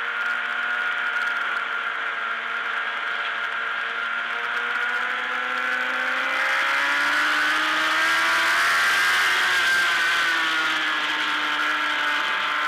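Onboard sound of a race motorcycle's engine at high revs through a long lean. Its note holds steady, then rises as the bike drives out of the corner, with wind rush growing over it. A short break in the note comes near the end.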